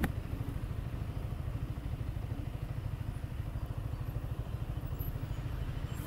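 Motorcycle engine running with a steady low rumble.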